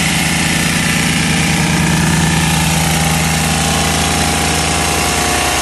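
Vibratory plate compactor running steadily, its engine and vibrating base plate compacting the soil base.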